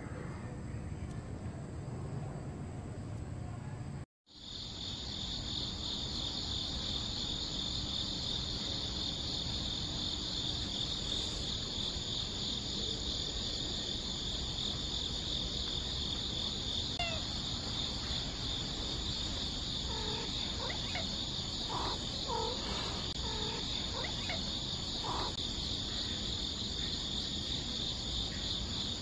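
A steady, finely pulsing insect chorus. It starts after a brief dropout about four seconds in, and a few faint short calls come over it later on.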